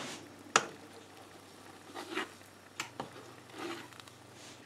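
Fine-mesh metal strainer scraping and knocking against a pot while skimming scum off simmering chicken stock: scattered soft scrapes and clinks, the sharpest about half a second in and two more near three seconds, over a faint steady hum.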